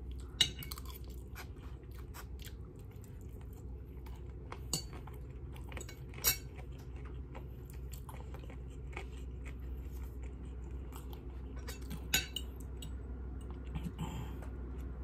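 Close-up chewing of noodles, with a few sharp clinks of a metal fork and spoon against food containers, about four times, over a steady low hum.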